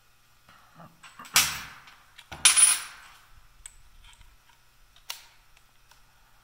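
Metal handling clatter while a bit is swapped in the hex chuck of a Craftsman cordless impact driver: two short bursts of metal clattering, the second with a thin ringing note, then a single sharp click about five seconds in.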